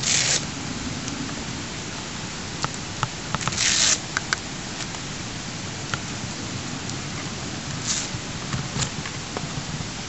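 Steady hiss with a few brief rustles and small clicks of handling: the first rustle comes right at the start, a longer one about three and a half seconds in, and a short one near the end.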